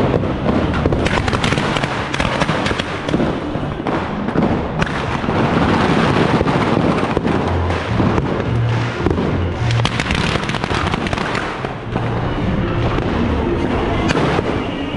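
Firecrackers and fireworks crackling and popping in a rapid, unbroken stream. A bass-heavy music track plays underneath.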